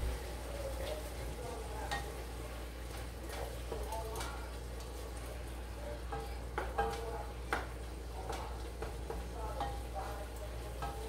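Wooden spoon stirring seasoned ground meat in a pot on the stove, with scattered scrapes and clicks against the pot over a light sizzle. A steady low hum runs underneath.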